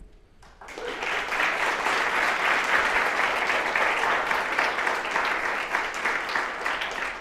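Audience applauding at the close of a talk, rising in about half a second, holding steady and tailing off near the end.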